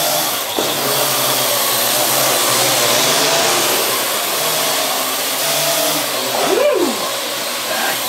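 Parrot AR.Drone quadcopter flying indoors, its four rotors giving a loud, steady whirring buzz, with a short tone that swoops up and back down near the end.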